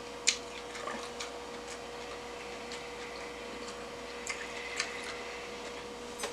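Eating sounds at close range: a scattered handful of light clicks and taps, the loudest shortly after the start, over a steady faint hum.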